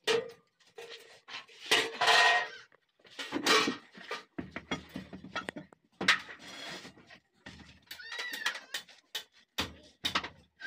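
Irregular clanks and knocks of iron being struck and handled at a blacksmith's work, with a short animal call about eight seconds in.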